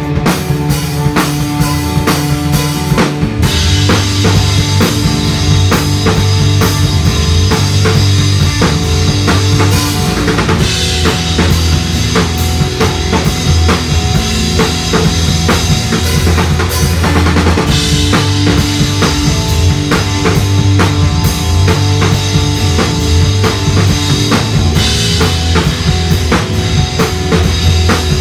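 Live electric guitar and drum kit playing together: a Fender American Professional Jazzmaster through a Matchless Lightning 18W clone valve amp, over a steady drum beat. Cymbals come in a few seconds in and drop out briefly twice, marking changes in the song's sections.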